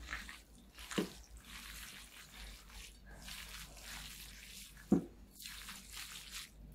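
Hands squeezing and mixing a wet stuffing of rice, bulgur, chopped tomato and herbs in a glass bowl: soft squelching and rustling, with two short knocks, the louder one about five seconds in.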